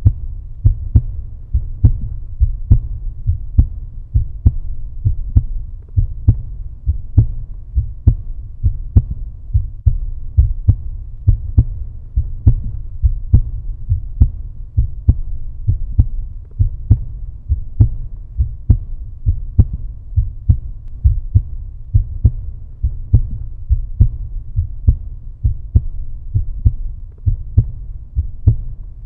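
Heartbeat: low beats repeating in a steady, even rhythm.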